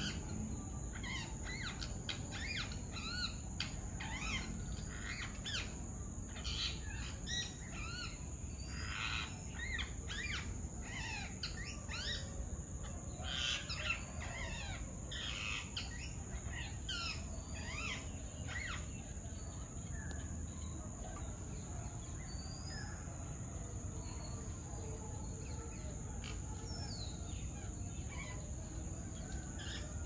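Wild birds calling: a busy run of short chirps and shrill calls through the first half, thinning to scattered calls later, over a constant faint high whine.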